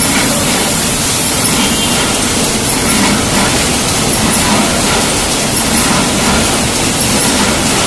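Steady, loud din of a running automatic 5-litre paint can body production line: machines and can conveyors running together, with many small clicks mixed into a constant noise.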